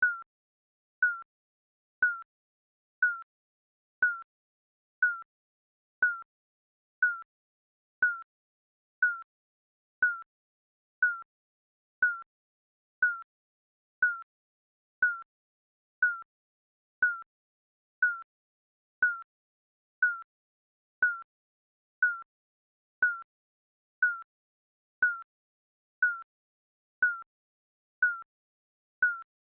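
Digital countdown timer beeping once every second: a short, high electronic beep at the same pitch each time, with silence between.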